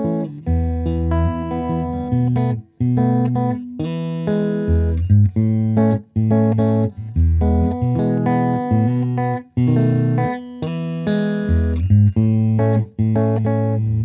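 Electric guitar with Radioshop ID:Evolution Mk.II Strat single-coil pickups played through an amplifier: chordal phrases of a few seconds each, with brief breaks between them.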